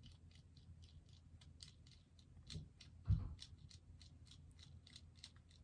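Light, irregular clicks and taps of a resin bobblehead and its display base being handled while the figure is fitted onto the base, with a soft knock and then a louder thump about three seconds in.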